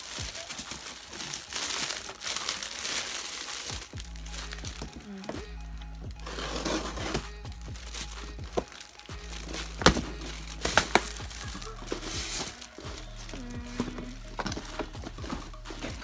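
Clear plastic wrap and wrapping paper crinkling as a gift box is unwrapped, with a few sharp snaps from the cardboard box midway. Background music plays under it.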